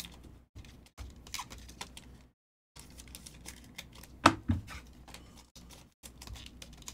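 2022 Panini Phoenix football trading cards being handled and flipped through: cards rustling and clicking against one another in short bursts, with one sharper click about four seconds in.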